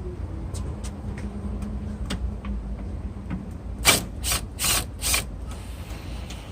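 A ratchet turning a T30 Torx screw in a car door's outside handle: a few light clicks, then four loud ratcheting strokes in quick succession about four seconds in, as the screw is loosened.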